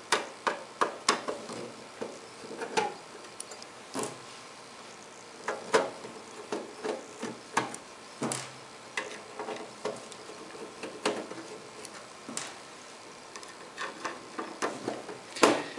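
Irregular light clicks and taps from a screwdriver working small screws out of a rack mixer's sheet-metal top cover, with the loose screws set down on a wooden bench.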